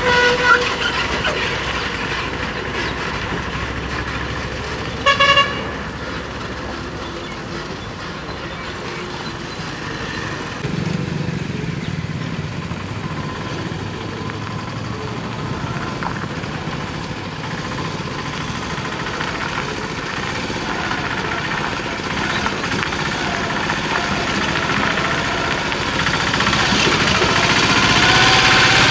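Small goods-carrier and autorickshaw engines running in road traffic, with one short horn toot about five seconds in.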